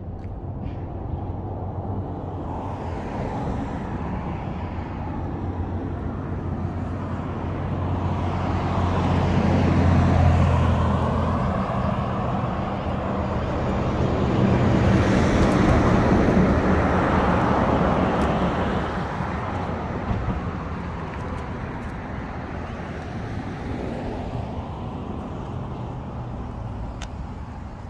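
Road traffic: a steady rumble of motor vehicles, swelling twice as vehicles pass close, about ten seconds in and again around sixteen seconds in.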